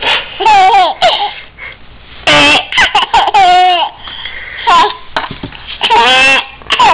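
Baby giggling in several short, high-pitched peals of laughter, with brief pauses between them.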